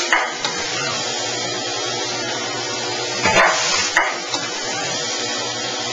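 Automatic robotic screw-driving cell running: a steady machine hum, broken by short hissing, whirring bursts right at the start and twice in quick succession a little past the middle.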